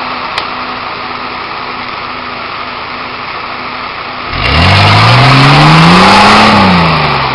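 Nissan Patrol GR Y60's 4.2-litre diesel engine pulling steadily under load, then revved hard about four seconds in as the 4x4 climbs out of a rut. Its pitch rises and falls back near the end while the wheels spin and throw up dirt.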